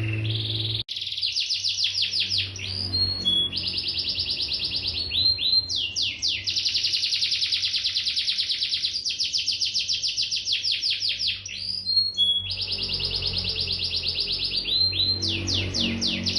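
Domestic canary singing in long, fast trills of rapidly repeated notes. Each roll is held for a few seconds before it jumps to a new pitch and tempo, with brief breaks between phrases.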